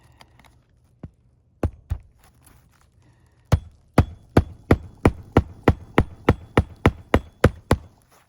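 Hammer blows on a shingle roof: three separate strikes, then a steady run of about fourteen strikes at roughly three a second, likely driving nails during a shingle repair attempt.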